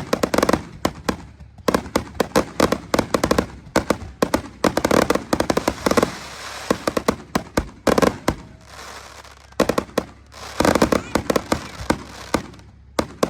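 Fireworks finale: a rapid, near-continuous barrage of aerial shell bursts, with a short let-up about nine seconds in.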